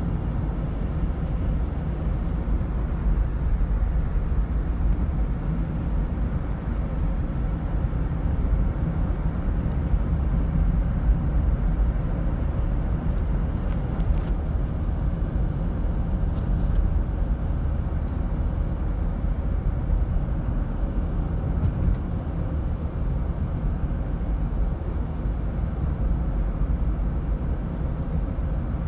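Car cabin noise while driving: a steady low rumble of tyres and engine.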